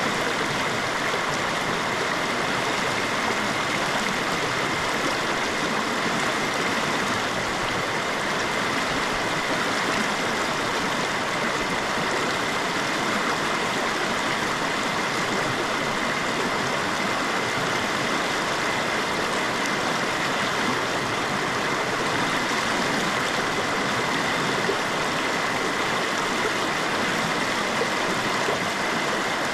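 Shallow river running over a rocky bed, giving a steady, even rush of water with no breaks.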